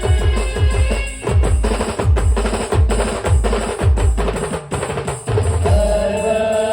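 Band music played live, driven by a fast run of heavy drum and bass-drum hits whose low notes slide downward. A held melody note comes in near the end.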